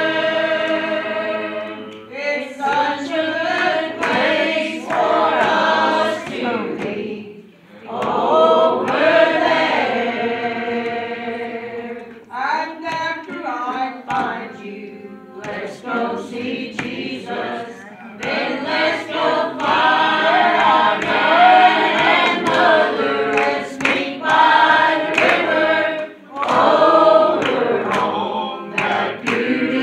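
Church congregation singing a gospel song together, with hands clapping along. The singing breaks off briefly between lines several times.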